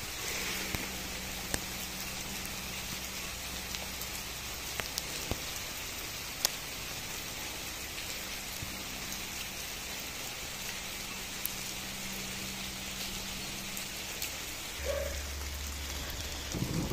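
Rain falling steadily, with a few sharp single taps standing out. A low rumble comes in near the end.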